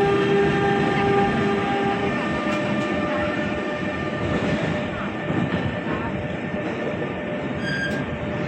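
A train running through the station, with steady rumbling wheel and rail noise. A steady whine stops about two seconds in, and a short high squeal comes near the end.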